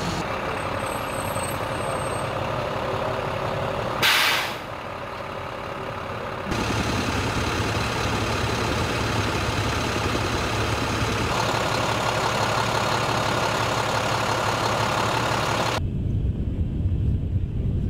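Jet-fuel tanker truck running steadily during aircraft refuelling, with a short, loud hiss of released air about four seconds in. The machine noise shifts twice and gives way to a low rumble near the end.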